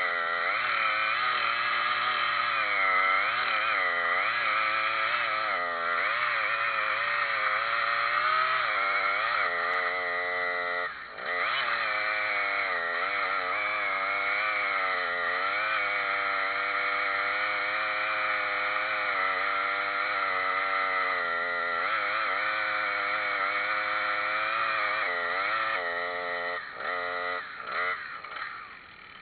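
Chainsaw running at high revs, its pitch sagging and recovering over and over as if under load in a cut. The throttle eases off briefly about eleven seconds in and several times near the end.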